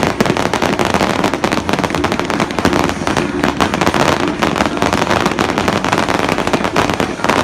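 Fireworks going off in rapid, unbroken succession: a dense crackle of many sharp bangs.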